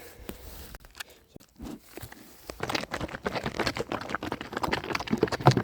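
Bottle calf sucking milk from a feeding bottle. A run of quick, irregular wet smacking clicks starts about halfway in.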